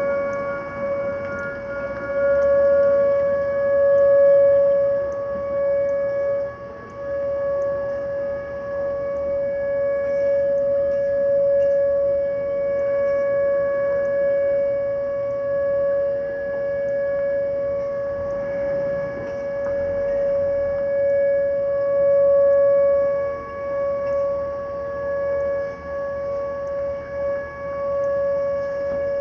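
Whelen outdoor warning siren sounding a steady alert tone for a nuclear power station siren test. It holds one unchanging pitch, and its loudness slowly swells and fades every several seconds.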